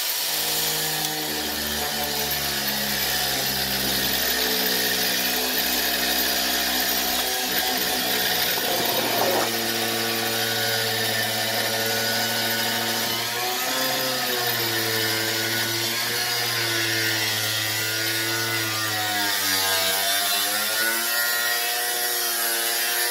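Steady machine noise: a hum whose pitch holds for a few seconds and then slowly shifts, several times, under a strong even hiss.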